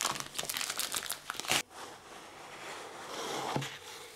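Cellophane shrink-wrap crinkling and crackling as it is peeled off a cardboard product box: a dense run of sharp crackles for about a second and a half. Softer rustling and sliding of cardboard follows, swelling a little near the end.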